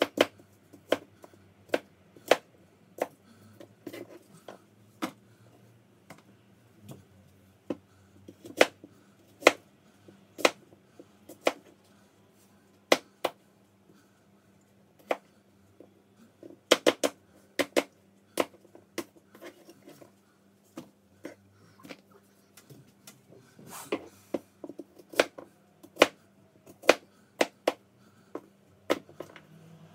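Kitchen knife cutting apples on a cutting board: sharp, irregular knocks of the blade striking the board, about one a second with some quick clusters.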